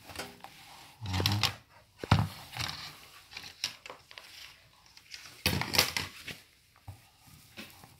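Handling noise: a cloth sleeve rustling and brushing against the recording device in several short, irregular bursts, with a sharp knock about two seconds in.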